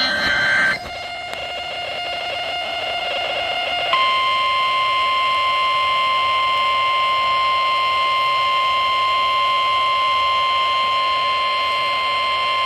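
Emergency-alert sounds: a short, buzzy data burst ends within the first second, then a few seconds of hiss. About four seconds in, a single steady weather-radio alert tone of about 1050 Hz starts and holds for roughly nine seconds, the signal that a warning message follows.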